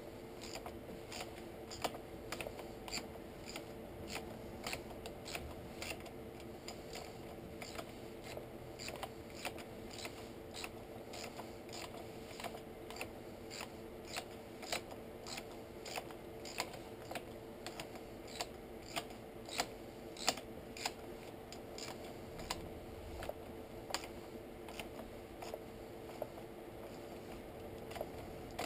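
Hand tools working on a motorcycle: light, uneven clicking, about two clicks a second, over a faint steady hum.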